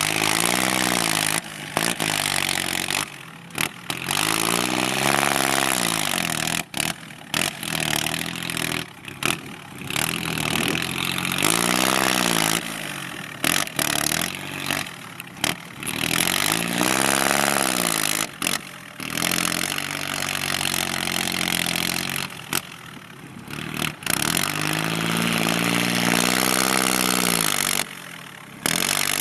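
Kubota L3608 tractor's three-cylinder diesel engine with a loud racing exhaust pipe, revved up and down again and again as it works pushing earth.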